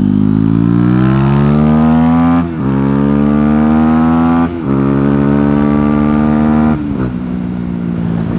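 Motorcycle engine with an opened stage 2 airbox and racing air filter accelerating hard through the gears, the airbox intake noise and the exhaust blending together. The pitch climbs steadily, drops at quick upshifts about two and a half and four and a half seconds in, then falls away as the throttle closes near seven seconds.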